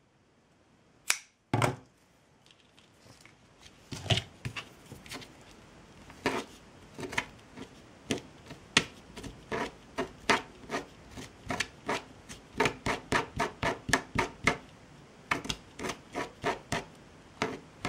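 Jute twine being teased apart by hand into loose fibres: quick, irregular scratchy rubbing strokes, about two or three a second, after two sharp clicks about a second in.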